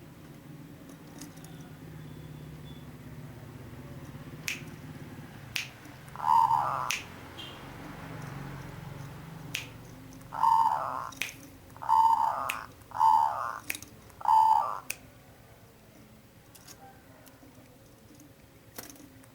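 Zebra dove (perkutut) cooing in five short phrases, with a few sharp clicks between them.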